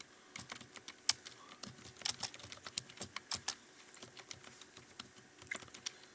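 Typing on a computer keyboard: quick, uneven key clicks, thinning out for a couple of seconds past the middle, then a short flurry of keystrokes near the end.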